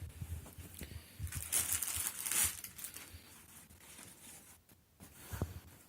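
Crinkling and rustling of packaging and elbow guards being handled, loudest for about a second and a half near the start, with a few light knocks around it.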